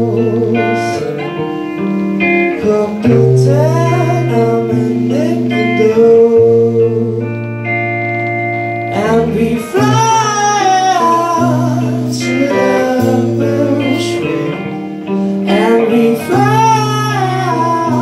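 Live band music: electric guitar and bass guitar, with a voice singing over them.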